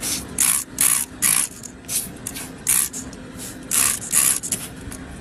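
Hand spray bottle squirting rinse into a hole in a cow's hoof sole, flushing out packed-in rocks: a run of short hissing squirts, about two a second, with a brief pause in the middle.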